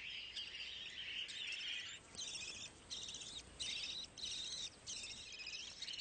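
Budgerigars chirping: a rapid, scratchy, high-pitched chatter, continuous for about two seconds and then coming in short bursts of about half a second each.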